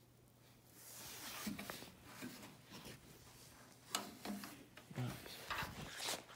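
Hand handling and rustling at the metal control panel of an old Belmont salon hair dryer, with a few sharp clicks as its knobs are worked, the loudest about four seconds in. A faint low hum runs underneath.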